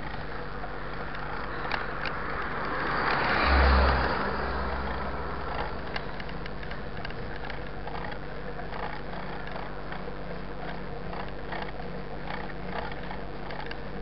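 A car passes the cyclists on an asphalt road: its noise swells to a peak about three and a half seconds in, with a brief deep rumble, then fades. Underneath, the steady running noise of a mountain bike on pavement and small ticks from its drivetrain.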